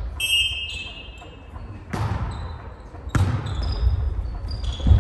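A volleyball being struck by hands in a passing and setting drill, three sharp hits echoing in the gym hall. Short high squeaks of sneakers on the wooden court come between the hits.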